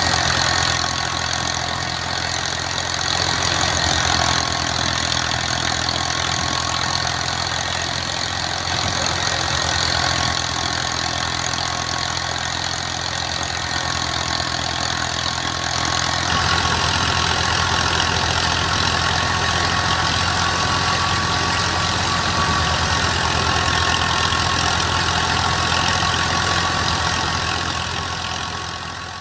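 Al Ghazi tractor's diesel engine running steadily under load, driving a wheat thresher, whose drum and fan add a loud whirring hiss and a thin steady hum over the engine. It grows a little louder about halfway through.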